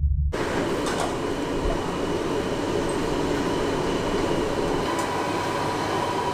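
Steady, loud background rumble and hiss of ambient noise with a faint steady hum, starting abruptly a moment in.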